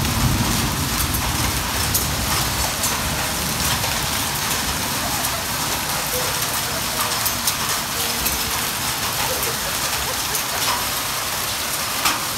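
Hailstorm with rain: a steady, dense hiss of falling rain, dotted with many small sharp ticks of hailstones striking the ground.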